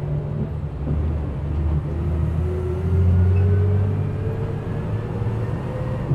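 City bus running, heard from inside the passenger cabin: a heavy low engine rumble, with a whine that rises steadily in pitch from about two seconds in as the bus gathers speed.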